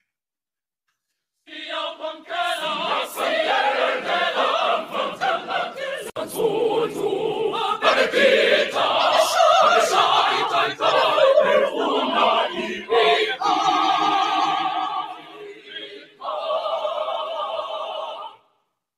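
Mixed school choir of girls' and boys' voices singing in full voice, starting about a second and a half in. Near the end it holds two long chords, with a short break between them, then cuts off suddenly.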